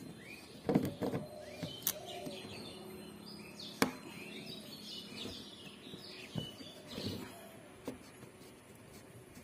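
Small birds chirping repeatedly, with a few sharp clicks and knocks from the phone being handled.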